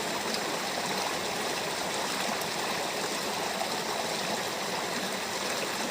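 Stream water running steadily, an even rushing and trickling.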